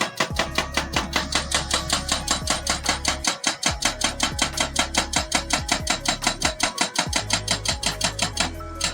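Background music with a fast, even beat of about eight strikes a second over held bass notes that change a few times.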